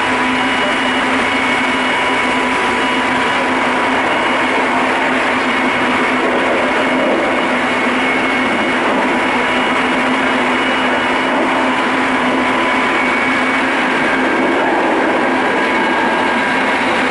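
Running noise of a Keikyu 800 series train heard inside car DeHa 818-6, over its bogie: a steady rolling rumble of wheels on rail with several steady whining tones over it, holding an even level.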